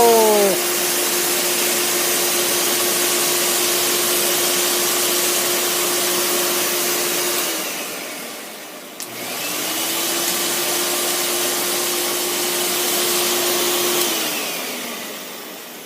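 Little Blizzard snow machine running on a test run after its seized fluid pump was replaced: a steady hum over a hiss. About halfway through it winds down, gives a click, and spins back up, then winds down again near the end.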